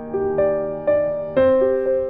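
Soft background piano music, single notes struck about every half second and left to ring.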